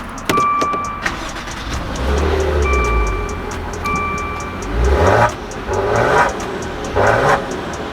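Maserati's twin-turbo V6 revved three times, about a second apart, each blip rising in pitch. A short repeated electronic beep sounds a few times before the revs.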